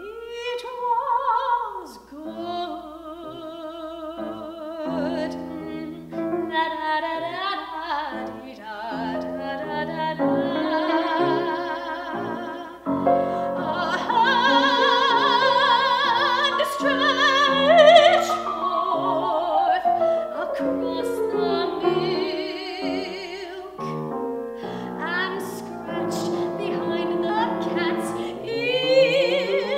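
A woman singing in classical operatic style with vibrato, accompanied by a grand piano.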